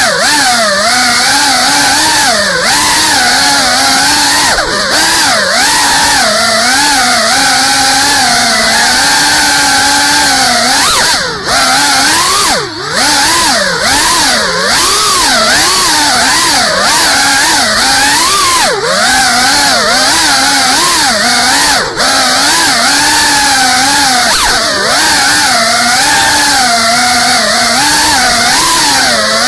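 GEPRC CineLog35 cinewhoop's four brushless motors and ducted 3.5-inch propellers whining in flight. The pitch swings up and down constantly as the throttle changes, and the sound dips briefly a few times.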